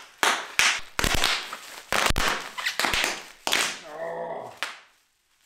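Plastic bubble wrap twisted and wrung in the hands, its bubbles popping in a rapid, uneven run of sharp cracks. A short voice sound follows about four seconds in.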